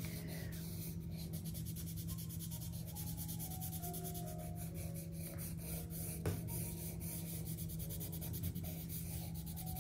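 Pencil scratching on drawing paper in a quick, steady run of short shading strokes, over a low steady hum.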